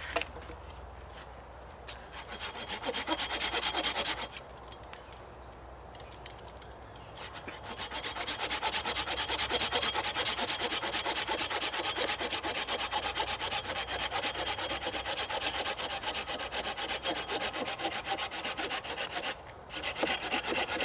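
Silky Pocketboy folding hand saw cutting through a red oak stick: a few strokes about two seconds in, a pause, then steady back-and-forth sawing from about eight seconds on, with a brief break near the end. The saw is old and its teeth, the owner suspects, are worn, so it cuts slowly.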